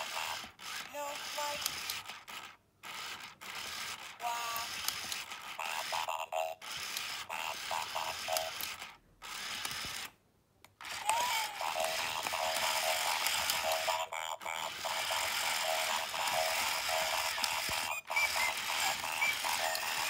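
Battery-powered toy robots running, their small motors and gear mechanisms whirring and clicking. The sound cuts out briefly a few times.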